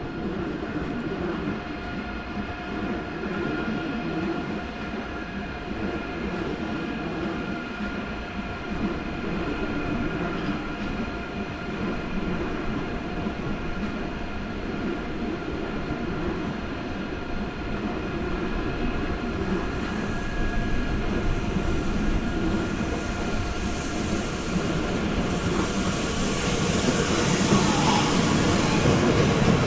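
Electric train in a station, its equipment giving a steady multi-tone hum over rolling and rail noise. The sound grows louder over the last third, with a high hiss near the end.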